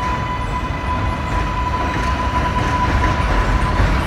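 New York City subway train on a steel elevated structure: a low rumble with a steady high whine that stops shortly before the end.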